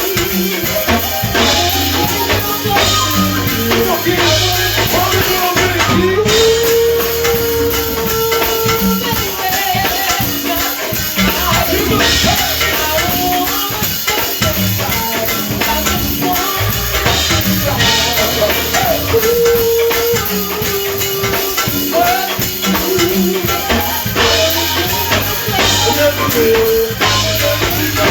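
A live band playing: a drum kit and shaker-type hand percussion keep a steady groove under a pitched melody line.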